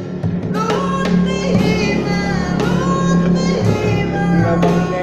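A busker singing a dangdut song to strummed acoustic guitar; the voice comes in less than a second in and holds the melody over the steady strumming.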